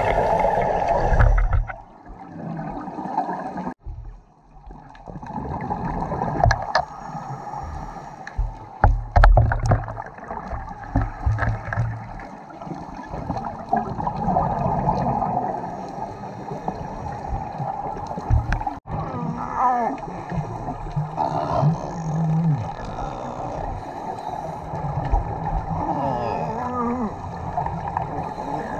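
Underwater sound picked up by a diving camera: gurgling, bubbling water with irregular low thumps. A few short warbling tones come through in the second half.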